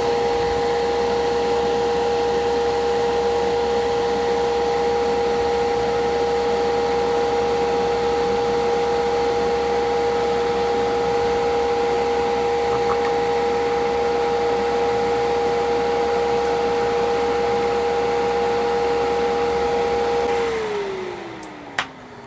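Fan of a 3D-printed fume extractor running: a steady rush of air with a steady whine. About twenty seconds in, it winds down, the whine falling in pitch as the fan slows.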